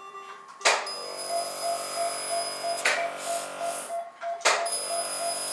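Surgical laser sounding its firing tone while cutting the first incision around a cat's claw: a steady electronic tone with a fast pulsing beep, about five a second. It starts about a second in, breaks off briefly near four seconds, then starts again, each start marked by a short burst of noise.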